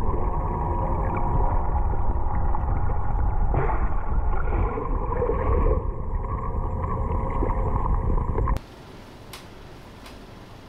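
Muffled underwater sound in a swimming pool as picked up by an underwater camera: a heavy low rumble of water with a steady hum, getting louder and noisier for about two seconds around four seconds in. It cuts off suddenly about eight and a half seconds in to quiet room tone.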